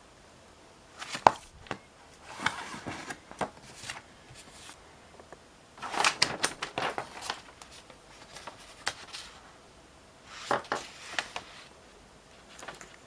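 Motherboard box contents being handled: several clusters of sharp knocks and clicks with rustling of cardboard and plastic packaging.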